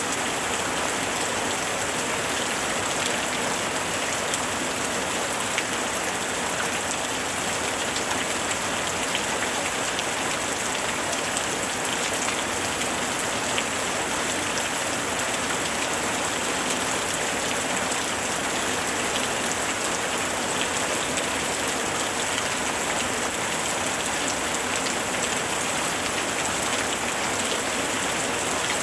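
Steady rain falling, a dense even hiss with many small drop ticks on surfaces.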